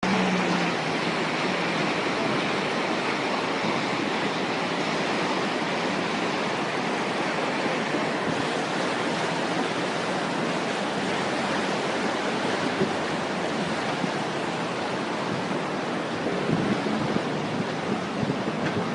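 River swollen with heavy rain, its water rushing in a steady, unbroken rush.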